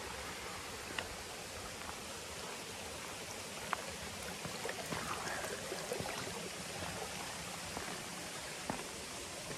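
Steady rushing of water from a small stream waterfall.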